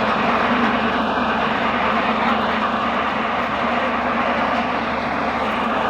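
Pellet-making machinery of a cattle-feed or biomass pellet plant running, a loud steady mechanical drone with a constant low hum.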